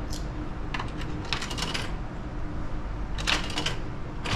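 Capsule-toy (gashapon) machine being worked by hand: its crank turned in short bursts of sharp ratcheting clicks, with plastic and metal rattles.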